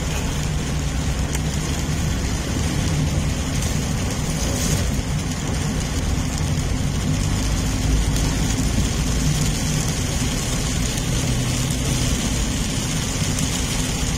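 Inside a car driving through heavy rain: a steady low rumble of engine and tyres on the wet road, with an even hiss of rain on the windshield and body.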